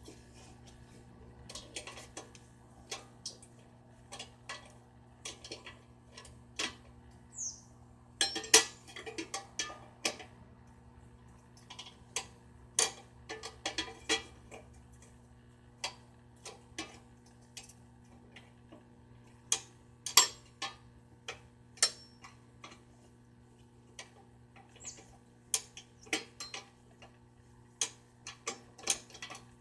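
Irregular metallic clicks and clinks, like hand tools and metal parts knocked and handled, coming in loose clusters, over a faint steady hum.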